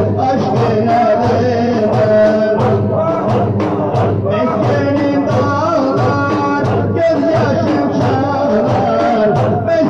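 Turkish Sufi ilahi: singing over a steady drum beat.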